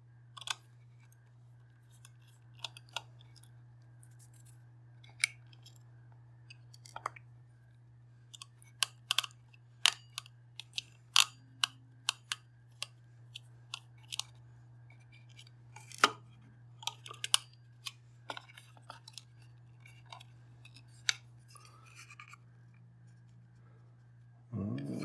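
Irregular small clicks and taps of plastic parts and gears being handled and pulled off while a cheap mechanical kitchen timer is taken apart, over a steady low hum.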